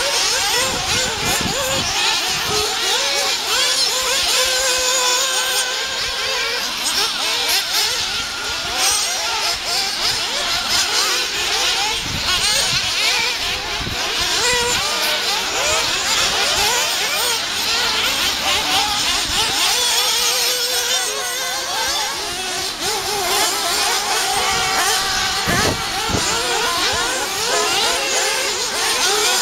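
Several radio-controlled off-road buggies' small engines racing around a dirt track, their high-pitched revs rising and falling and overlapping as the cars accelerate and brake through the corners.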